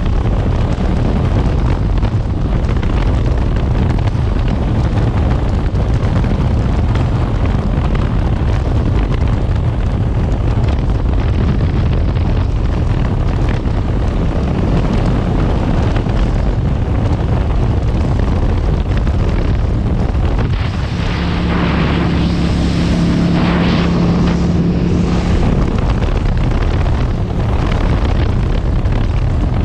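Motorcycle riding along at speed: engine running under heavy wind rush on the microphone. About two-thirds of the way through, a steady droning tone rises over it for a few seconds.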